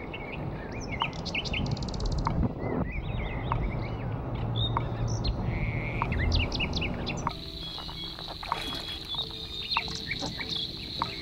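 Birds chirping over a low, dense rumble of wind and road noise from a moving car. About seven seconds in the rumble drops away, leaving bird chirps over a steady high-pitched hum.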